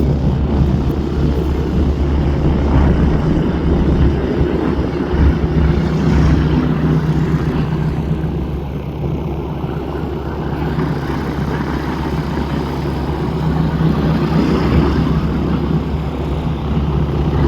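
Propeller-driven RV light aircraft flying past, a steady engine and propeller drone that eases a little partway through and builds again near the end.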